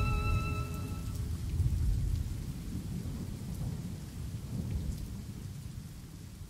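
Violin music dies away in the first second, leaving a low, irregular rumble that fades toward the end.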